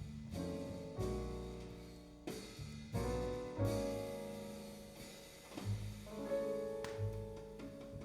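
Jazz piano trio recording played back over Sound Lab electrostatic loudspeakers: piano chords struck and left to ring, over double bass and light drums.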